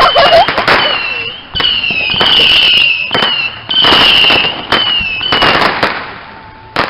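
Handheld fireworks shooting off one whistling shot after another: each a shrill whistle sliding slightly down in pitch over a loud rushing hiss, about one a second, dying away near the end.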